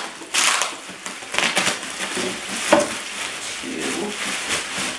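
Plastic bubble wrap crinkling and rustling as it is pulled away from a wooden part, in a string of rustles with one sharp click a little past the middle.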